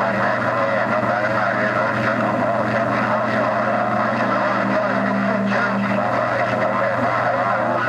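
CB radio receiver on channel 28 carrying several skip stations keyed at once: their carriers beat into steady low tones under garbled voices that clash and can't be made out.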